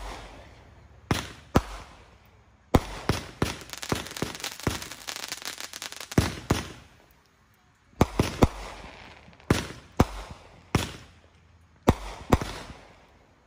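Home aerial fireworks going off: a string of sharp bangs as the shells burst in the air. A dense run of crackling starts about three seconds in and lasts to past six seconds. After a short lull come more single bangs at irregular intervals.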